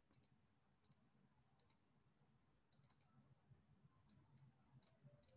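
Near silence: faint room tone with soft, irregular little clicks, some single and some in quick pairs or triples.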